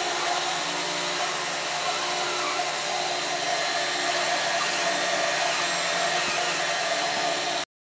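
Steady whooshing hiss of moving air, as from a running fan or blower, with a faint steady hum in it; it cuts off abruptly near the end.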